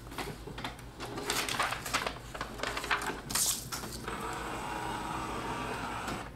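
Paper rustling and handling clicks as a sheet is laid on the scanner glass of an HP Envy 5540 all-in-one printer. About four seconds in, a steady mechanical hum begins: the scanner running.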